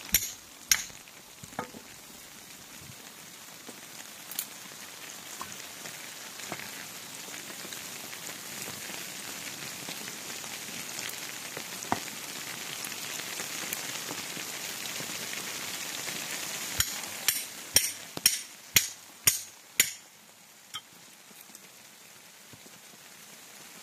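Hatchet striking and splitting a short log on a wooden chopping block: a couple of sharp knocks near the start, then a quick run of about eight strikes about three-quarters through. Under it, the steady rushing hiss of a shallow stream.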